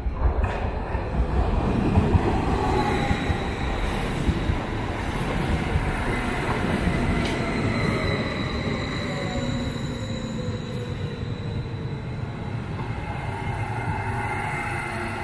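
A train passing close by: loud, continuous rumble of wheels on rails, with faint steady high-pitched tones and a whine that slowly falls in pitch.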